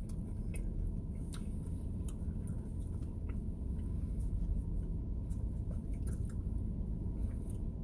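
People chewing pizza, with small irregular mouth clicks over a steady low hum.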